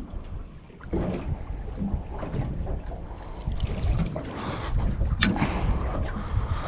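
Wind buffeting the microphone over water slapping against a small boat's hull, getting louder about a second in. Scattered knocks and clicks of handling gear on the boat, with one sharp click about five seconds in.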